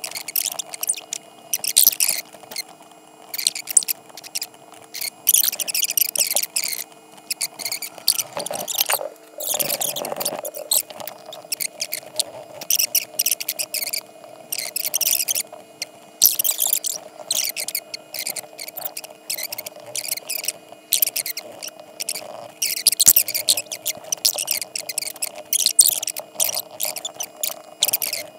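High-pitched scratchy squeaking in short, irregular bursts, over a faint steady hum.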